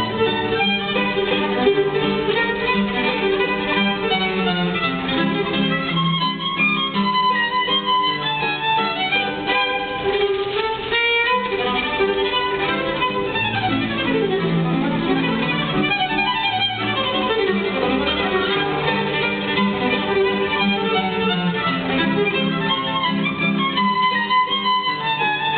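A violin and an acoustic guitar playing a tune together.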